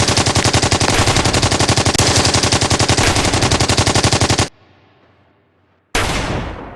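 Machine-gun fire sound effect: one long, rapid burst that stops about four and a half seconds in. After a short quiet, a single loud blast with a fading tail comes near the end.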